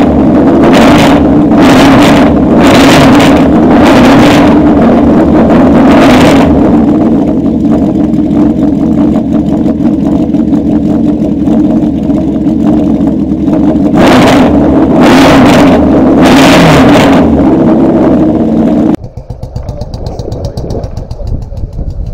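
Honda CB750 inline-four motorcycle engine idling, revved in short throttle blips: five in quick succession, then four more after a spell of plain idle. Near the end it cuts off abruptly to a much quieter low rumble.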